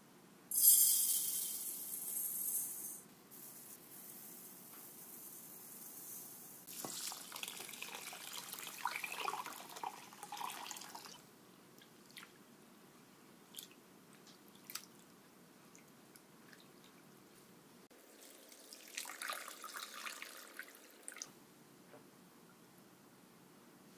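Water pouring and splashing into a bowl, with a sharp hiss at the start, a few light clicks, and a second short pour near the end.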